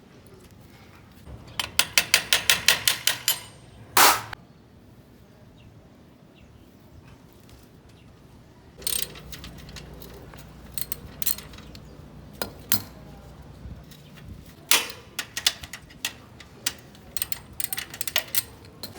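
Hand work on a bicycle: a quick run of ratcheting clicks, about eight a second, then a single sharp knock about four seconds in. After that a low steady hum comes in under scattered clicks and taps.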